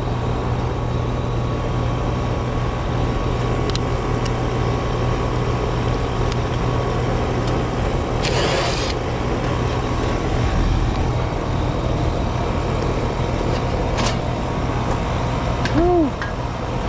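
Air-conditioning condensing unit running and cooling: a steady compressor hum under the rush of the condenser fan. A brief burst of hiss comes about eight seconds in, and a single click near fourteen seconds.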